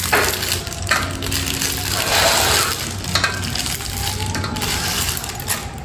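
Kitchen knife cutting and scraping through food over a steel bowl, a series of irregular crunching strokes.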